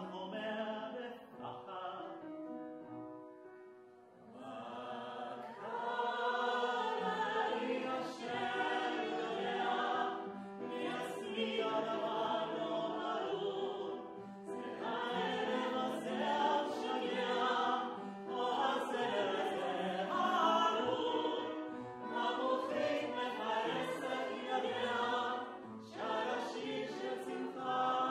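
A man and a woman singing in a classical, operatic style with vibrato, accompanied by an upright piano. The music eases to a quiet passage around three to four seconds in, then the voices come back in full.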